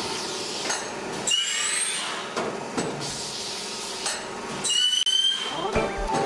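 HX-660A automatic plastic cup making machine running with a steady mechanical clatter, and two hissing air blasts with a high whistle, about a second in and near five seconds.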